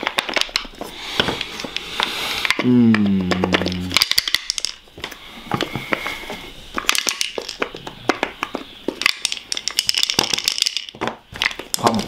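Wooden puzzle box being twisted and shifted in the hands, its wooden slats clacking and rattling against each other in quick, irregular clicks. A man gives a short low hum about three seconds in.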